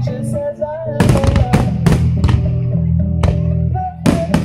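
Music with a steady beat of about three beats a second, held bass notes and a wavering melody line. The beat comes in about a second in.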